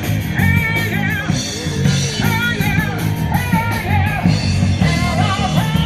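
Live rock band playing through a PA, a singer over guitar, bass and drums.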